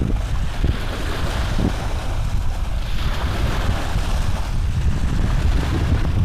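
Steady low rumbling noise on the microphone, with a few faint rustles.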